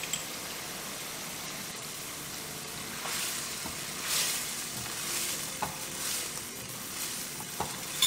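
Loofah, egg and cornstarch slurry sizzling in a nonstick frying pan. The sizzle is steady at first, then comes in louder waves from about three seconds in as a silicone spatula stirs the food, with a few light clicks of the spatula against the pan.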